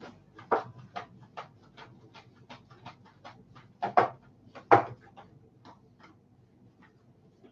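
Paintbrush dabbing against a canvas board: a run of short taps, about two or three a second, with a few much louder taps near the start and past the middle.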